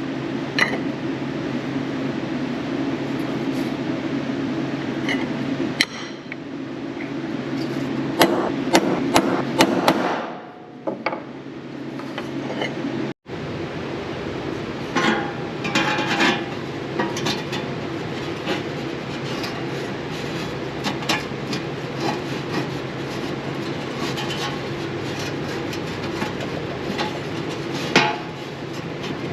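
Hammer striking sheet metal in quick runs of sharp taps over a steady mechanical hum.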